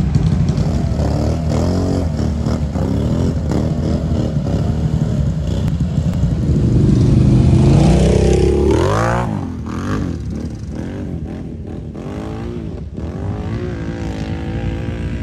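ATV engine revving as it churns through deep water, the revs rising and falling with the throttle and climbing sharply about nine seconds in. After that a quieter ATV engine keeps running with its revs going up and down.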